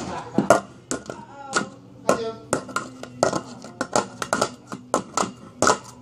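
Hand drumming on a metal muffin tin: irregular sharp taps and knocks, a few to several a second, with short vocal noises between them.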